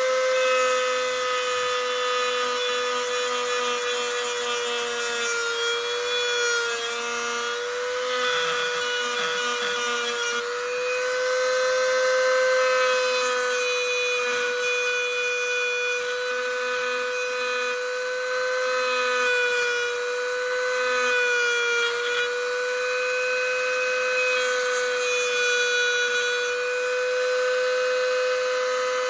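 Handheld rotary tool with a small cut-off disc running at high speed while cutting a thin steel knife blade: a steady high whine whose pitch sags briefly several times as the disc bites under load.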